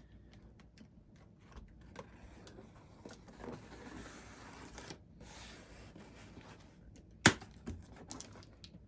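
Knife slitting packing tape on a cardboard box: light scratching and scattered small clicks, with one sharp click about seven seconds in.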